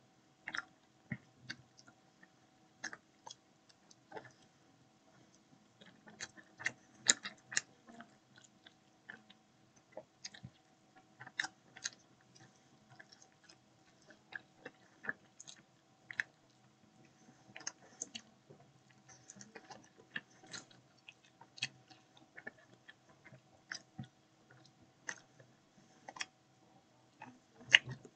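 A person chewing and biting food close to the microphone: irregular short mouth clicks with no steady rhythm, over a faint steady hum.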